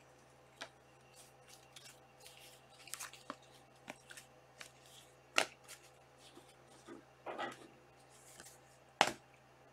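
Panini Select soccer trading cards being handled and flipped through by hand: soft scattered clicks and rustles as cards slide against each other and are set down, with two sharper taps about five and nine seconds in.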